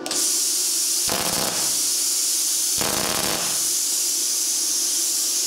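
Луч Профи CUT-50 plasma cutter torch blowing compressed air with a steady hiss, broken twice by short crackling bursts, about one and three seconds in, as the arc is struck in open air.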